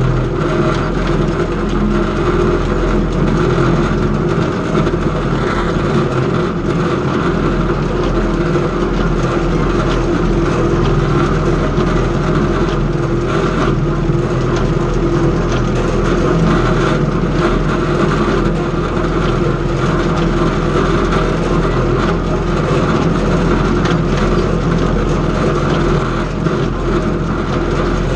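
Tractor engine running steadily while an antique hay baler works, a continuous loud mechanical din.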